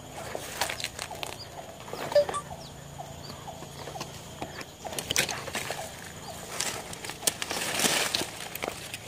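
Footsteps and rustling through swamp grass and leaves, an irregular run of steps and swishes that grows busiest near the end.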